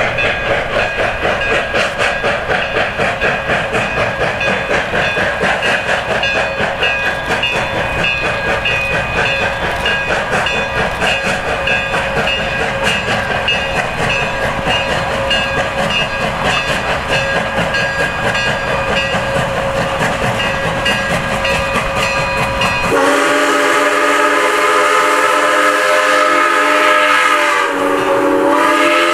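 Iowa Interstate 6988, a Chinese-built QJ 2-10-2 steam locomotive, working a loaded freight train: a steady rhythmic exhaust beat over rail noise. About two-thirds of the way through, its steam whistle sounds a long, loud chord, breaks off briefly near the end and sounds again.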